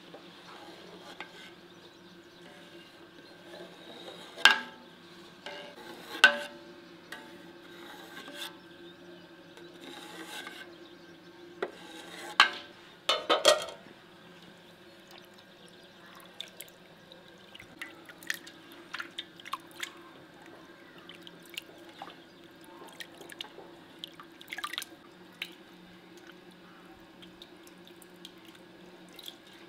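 Whey splashing and dripping in an aluminium pot as fresh cow's-milk curd is cut with a knife and then lifted out by hand. A few loud sharp knocks and splashes come between about four and fourteen seconds in, followed by scattered small drips.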